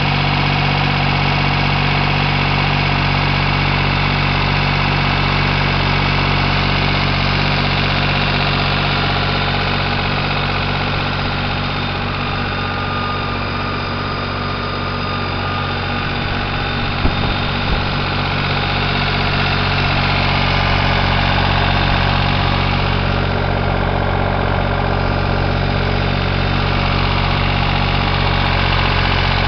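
Farm tractor engine running steadily as the loader tractor is driven along, heard from the driver's seat. Two brief knocks come a little past halfway.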